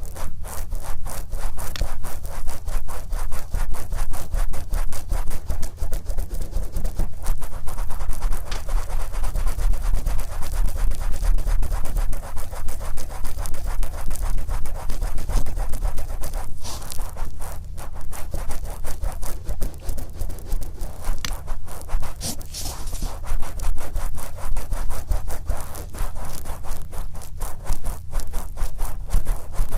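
Wet, oiled cotton swab rubbing over the outer ear of a binaural microphone, in quick repeated strokes close to the mic.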